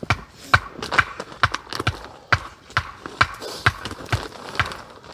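Steady, even blows, about two a second, driving a stake into the ground.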